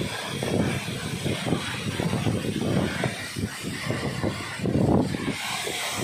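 Waterfall rushing into a rock pool: a steady noisy roar that swells and dips unevenly.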